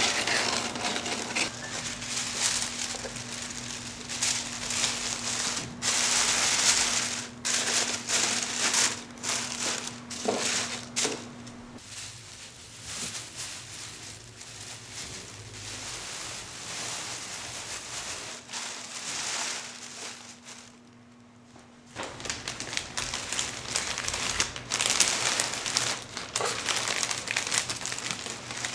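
Wrapping material crinkling and rustling as it is handled, in irregular bursts, quieter for a stretch a little past the middle.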